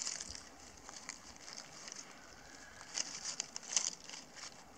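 Dry fallen leaves crackling and rustling as the macaques shift on them, in short scattered bursts of crisp clicks that gather about three to four seconds in.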